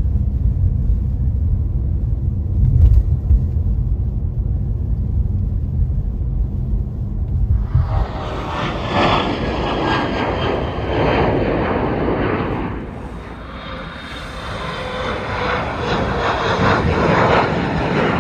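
Low rumble of a car driving on a snow-covered road, heard from inside the cabin. About eight seconds in it gives way to jet airliners at takeoff, a loud engine roar with slowly falling whining tones, easing briefly and building again about two-thirds of the way through.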